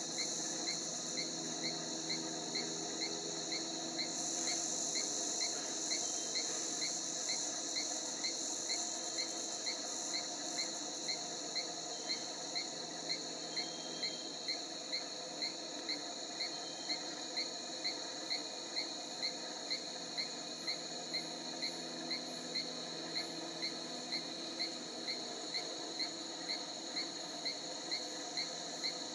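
Rainforest insect chorus: a steady high-pitched drone with a regular chirp repeating at an even pace.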